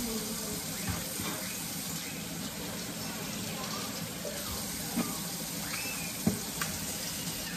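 Kitchen tap running steadily into the sink, with a couple of faint knocks near the end.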